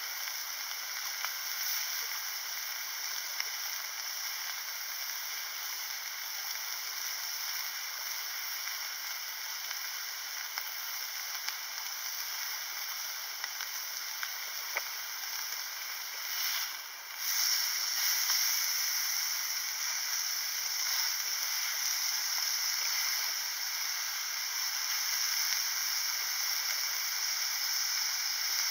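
Slices of beef sizzling in a small frying pan on an Iwatani single butane burner: a steady hiss with scattered small pops. It breaks off briefly about seventeen seconds in, then comes back louder.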